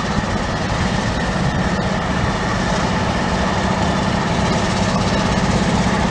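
Diesel locomotive engine running with a steady low, pulsing drone as the locomotive approaches slowly, growing slightly louder.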